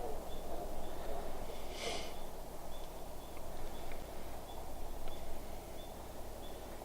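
Quiet woodland ambience: faint high chirps repeating about twice a second, with a brief rustle about two seconds in.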